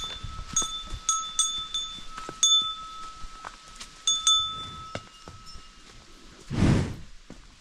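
A small metal bell ringing in short, uneven strokes about two a second, with a held ringing tone under the strokes, then a short loud rush of noise near the end.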